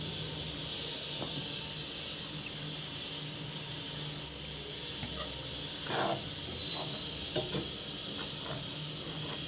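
Milk-based white sauce simmering in a pan on the stove, a steady low hiss, with a few faint light taps about five to eight seconds in.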